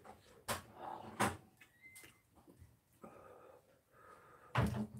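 Eating ramyun with metal chopsticks at a table: three short sharp clacks, about half a second in, a second later, and the loudest near the end, with quieter noises between.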